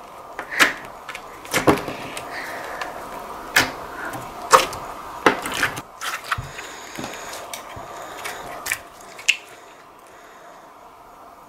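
Clear beaded slime being squeezed and pressed by hand, giving irregular sharp clicks and pops, dying down near the end.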